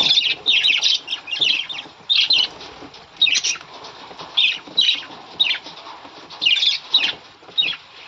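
Budgerigars chirping and chattering in quick bursts of short, high chirps, with wings fluttering as birds fly out of the carrier.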